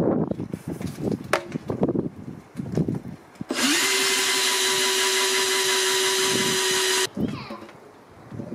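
Cordless drill spinning up and boring a drain hole through the oak head of a half wine barrel, running steadily for about three and a half seconds, then stopping and winding down. A few knocks and handling sounds come before it.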